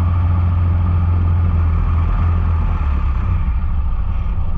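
Small engine of a derby riding lawnmower running loudly with a steady low hum, getting a little uneven near the end.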